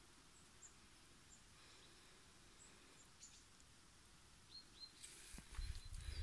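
Near-silent outdoor ambience with faint, scattered short high bird chirps. Near the end, a louder low rumble with rustling clicks sets in.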